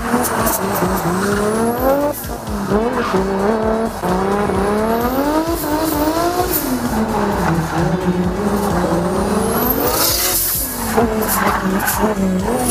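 Nissan 180SX's swapped-in Toyota 2JZ straight-six drifting: the engine's pitch rises and falls again and again as the throttle is worked, over tyre squeal and skidding. A burst of tyre hiss comes about ten seconds in.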